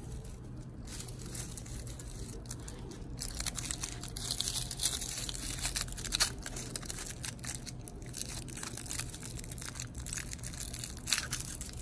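Aluminium foil crinkling and crackling as it is handled and unwrapped from around a small toy car, getting louder about three seconds in.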